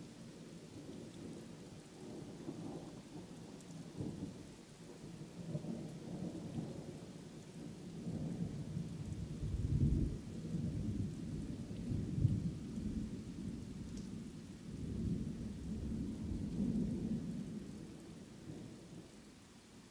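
Thunder rolling in long low rumbles over steady rain. It grows louder through the first half, peaks about halfway through, swells once more and fades near the end.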